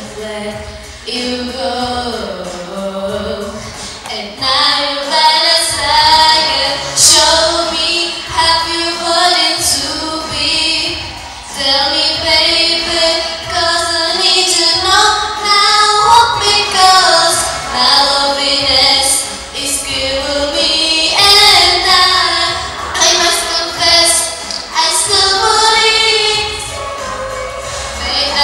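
A girl singing a song into a handheld microphone, her voice amplified, holding notes with a wavering vibrato.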